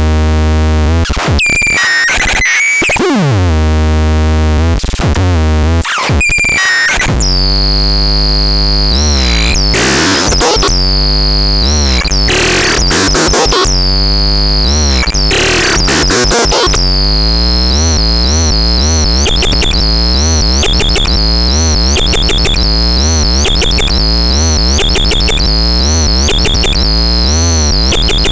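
Synthesizer sound demo: loud electronic tones over a heavy bass, gliding up and down in pitch at first, then settling into a fast repeating pulsing pattern about two-thirds of the way through.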